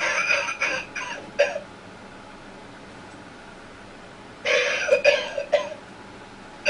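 Novelty skull ashtray playing a recorded coughing fit in two bouts: one at the start lasting about a second and a half, and another about four and a half seconds in lasting about a second.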